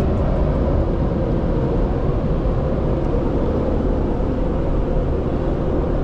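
Automatic car wash machinery running around the car, heard from inside the cabin as a steady, even noise.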